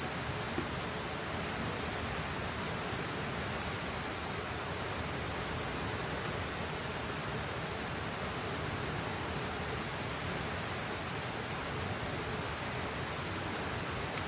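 A river rushing steadily, an even and unbroken wash of water noise.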